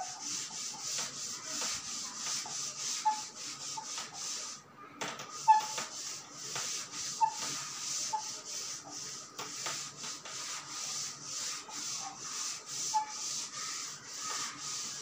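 A cloth wiping chalk off a blackboard in quick back-and-forth strokes, about two a second, with a short pause about four and a half seconds in.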